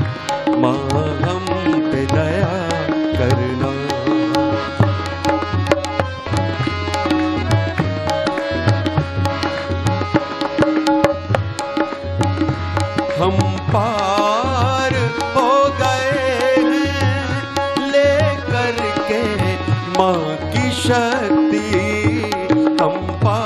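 Instrumental interlude of a devotional bhajan: harmonium playing the melody over tabla and dholak keeping a steady, dense rhythm. In the second half a gliding pitched line runs over the accompaniment.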